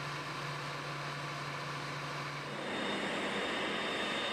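A steady low hum, then, about two-thirds of the way in, a slightly louder steady rush of jet engine noise with a thin high whine from a C-5 Galaxy.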